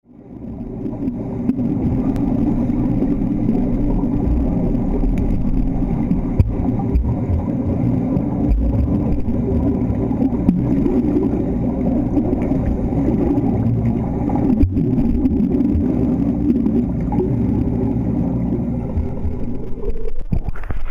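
Muffled, steady low rumble of swimming-pool water heard through a camera held underwater. Near the end it turns choppier as the camera comes up to the surface.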